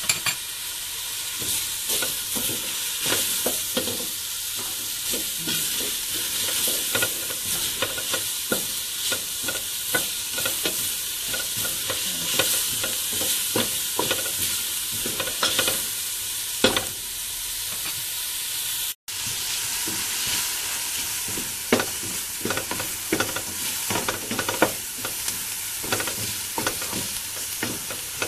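Chopped garlic and onion sizzling in olive oil and melting butter in a pot, stirred with a wooden spoon that scrapes and knocks against the pot many times. The sound cuts out for an instant about two-thirds of the way through.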